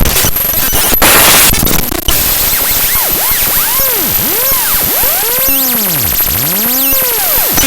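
Raw bytes of the QuickTime.qts file played back as audio by Binary Waterfall: harsh static-like noise with a brighter surge about a second in. From about three seconds in, swooping tones arc up and down, roughly one a second, over the hiss.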